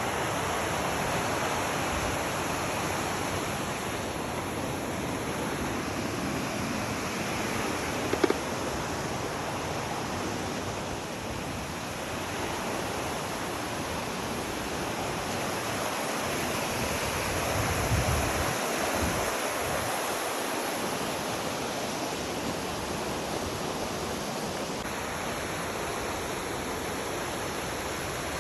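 Reekie Linn waterfall rushing steadily, a continuous even wash of falling water, with a brief low rumble about eighteen seconds in.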